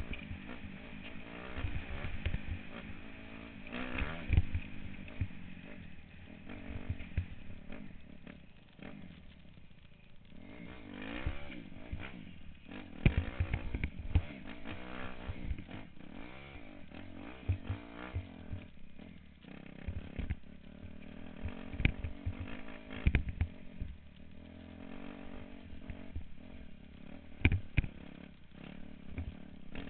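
Dirt bike engine running under load, revving up and down as it is ridden over a dirt road and a rocky trail. Scattered sharp knocks and rattles come from the bike jolting over the rocks.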